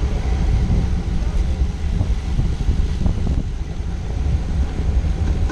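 Wind buffeting the microphone of a bike-mounted action camera on a road bike moving at about 13 to 17 mph: a steady low rumble.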